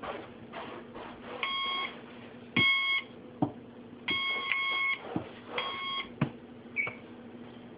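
GunVault handgun safe's electronic keypad beeping: four steady beeps of about half a second each, the third one longer, with a few sharp clicks in between.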